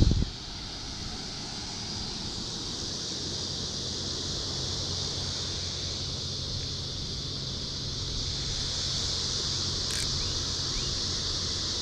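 Steady high-pitched insect chorus over a low rumble of wind on the microphone. There are a couple of knocks right at the start and a single sharp click about ten seconds in.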